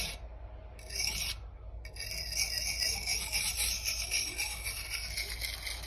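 Kitchen knife blade rubbed in small circles on the coarse side of a whetstone oiled with mineral oil: a steady scraping grind that picks up about a second in.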